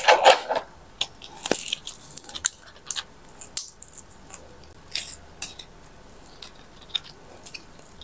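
Plastic raffia string and a cut strip of plastic bottle crinkling and crackling in the hands as the string is threaded through and knotted: scattered light crackles and clicks, unevenly spaced.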